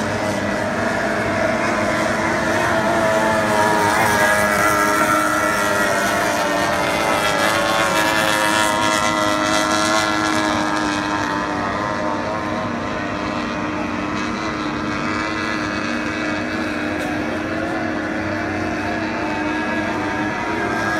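Several 50 hp outboard engines, mostly Yamaha, on tunnel-hull race boats running flat out. Their overlapping notes waver in pitch and are loudest a few seconds in.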